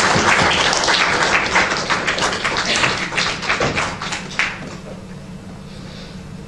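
Audience applauding, many quick overlapping claps that die away about four and a half seconds in.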